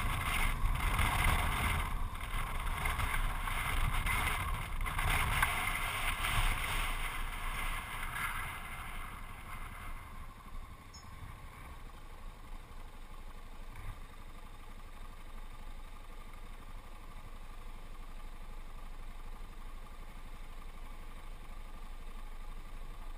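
Wind rushing over the microphone and a Yamaha XT660Z Ténéré's single-cylinder engine running while riding on a gravel road. About ten seconds in the bike stops, and the sound drops to a quieter, steady idle.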